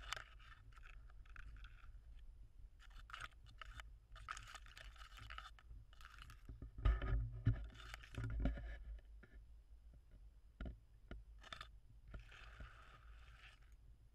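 Grass rustling and scraping close to the microphone in irregular bursts as a puppy noses through it. Two heavy dull thumps come about halfway through.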